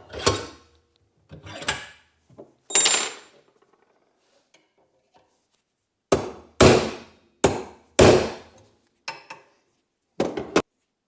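Hammer blows on metal, trying to drive a stuck, crooked pin out of a Volvo 142 door hinge. There are three blows spaced about a second apart, a pause of about three seconds, then a quicker run of about six blows, each ringing briefly.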